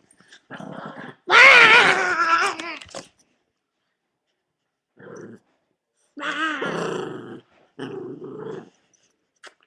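Small dog growling and vocalising: a loud, wavering growl-whine about a second in, then several shorter, quieter growls.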